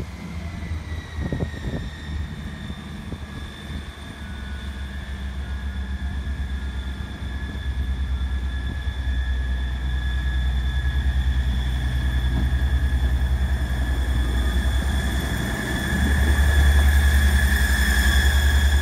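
ScotRail Class 158 diesel multiple unit approaching along the platform: its diesel engines drone low under a steady high-pitched whine. Both grow louder as the train draws near and are loudest near the end as it comes alongside.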